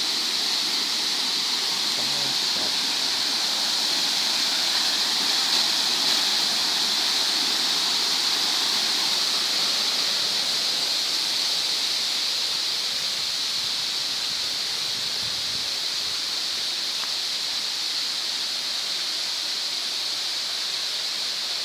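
Waterfall rushing steadily, with a high-pitched steady hiss over the water noise.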